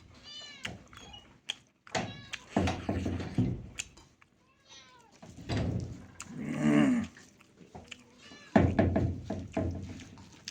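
A cat meowing several times: short calls that rise and fall in pitch, mostly in the first half. Louder, noisier bursts of sound come in between, the loudest about two-thirds of the way in.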